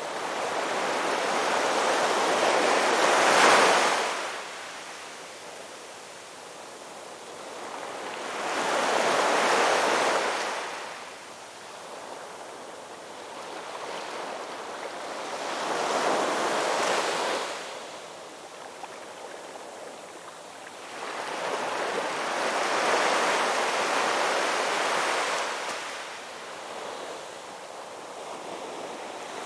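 Ocean waves breaking on a shore: each wave rises to a rushing crash and washes back, in slow surges about every six seconds, four in all with the next one beginning at the end.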